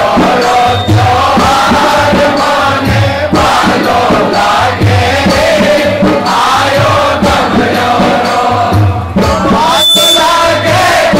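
A large group of men singing a devotional bhajan to the mother goddess Gavarja (Gauri) together in loud unison chorus, with a low regular beat about every three-quarters of a second underneath.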